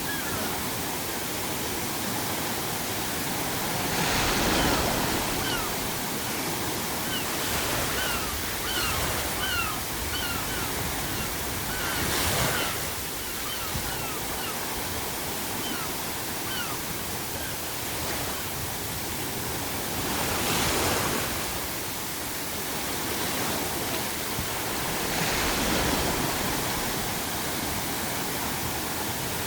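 Sea waves breaking on a shore, a steady wash that swells into a crash every several seconds. Seagulls call over it in a run of short, falling cries through the first half.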